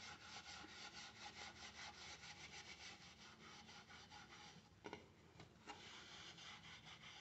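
Faint, rapid scrubbing of a kitchen sponge on an aluminium pot lid coated in polishing paste, about six back-and-forth strokes a second. The strokes grow fainter after about three seconds, with a couple of light knocks later on.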